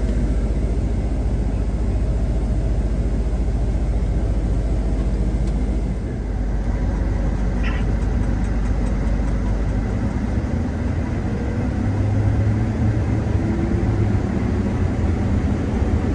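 Combine harvester running steadily in the field, a continuous low engine and machinery drone. The drone shifts about six seconds in and a deeper hum grows from around ten seconds.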